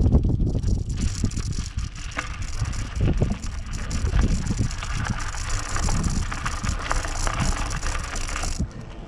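Wind rumbling on the microphone, with a dry, rattling buzz that starts about a second in and stops abruptly near the end.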